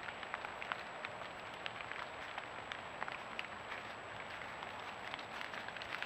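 Irregular crackling and rustling, like dry leaf litter being stirred or stepped on, with many small sharp crackles scattered through it. A faint steady high-pitched tone runs underneath.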